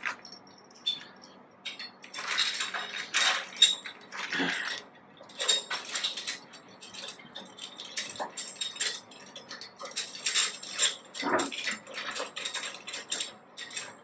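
Irregular metallic clinks and knocks as steel clamps are handled and fitted onto the steel bars of an air-conditioner unit's stand, with a few louder clusters of knocks.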